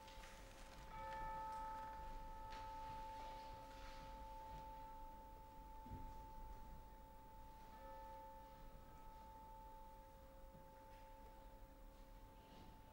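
Orchestral tubular bell struck softly twice, about a second in and again near eight seconds, each stroke ringing on and slowly dying away.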